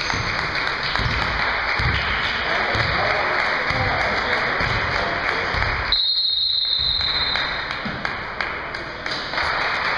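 Crowd noise echoing in a gymnasium during a basketball game, with a basketball thumping on the hardwood about once a second. About six seconds in, a high steady tone sounds for roughly two seconds.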